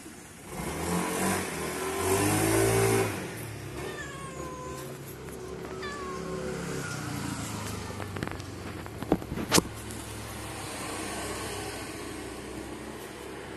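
A cat meowing twice, short calls falling in pitch, about four and six seconds in. Before them a louder low rumble fills the first three seconds, and a few sharp taps come around nine seconds in.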